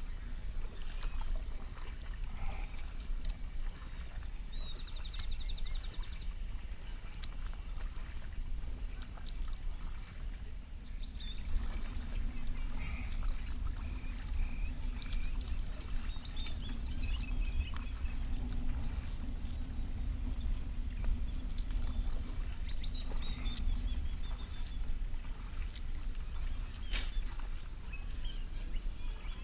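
Kayak being paddled on a calm lake: the paddle dipping and water splashing and dripping over a steady low rumble, with a few short high chirps now and then.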